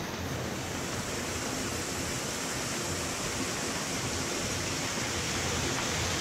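Small mountain stream cascading between boulders: a steady rush of splashing water.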